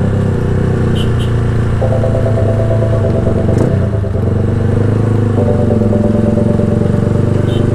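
Motorcycle fitted with a Villain shorty open-muffler exhaust running loud and steady on the move. A brief dip comes about four seconds in, and higher tones come and go above the exhaust note.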